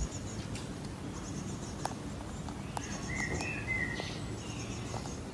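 Birds chirping and trilling outdoors over a steady low background rumble, with a few short falling whistled notes about three seconds in and a couple of faint clicks.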